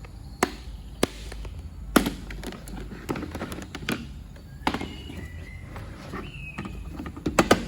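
Plastic toolbox and its trays being handled: a series of sharp clicks and knocks, with a quick cluster of them near the end.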